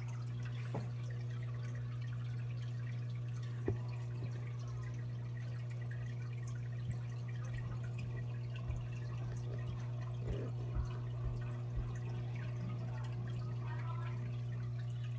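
Home reef aquarium running: a steady low hum of its pumps with water trickling and dripping. A few soft knocks come in the middle of the stretch.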